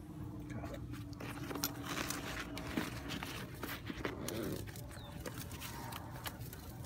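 Dry grass and cattail stalks rustling and brushing as someone pushes through bank vegetation, with scattered clicks and a steady low hum that fades about two and a half seconds in.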